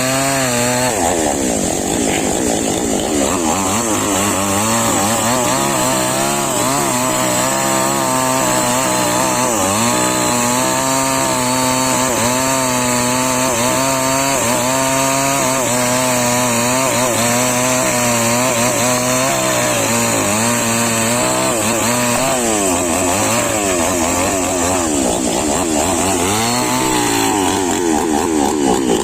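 Chainsaw engine running loudly and continuously, its pitch wavering up and down throughout, with a drop in pitch near the start.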